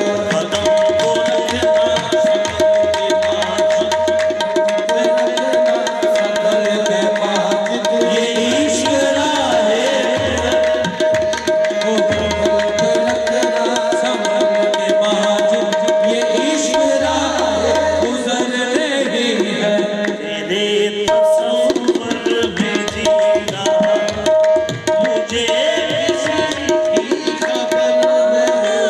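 Qawwali music: a harmonium holding a steady note over fast tabla drumming, with sung phrases at times. The held harmonium note breaks off about two-thirds of the way through and comes back in short stabs.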